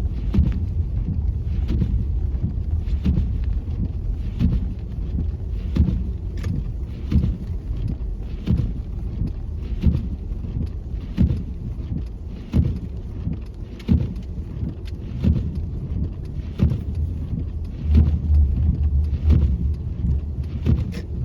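A car driving slowly on a snow-covered road, heard from inside the cabin: a steady low rumble of engine and tyres, with short knocks or crunches about once or twice a second.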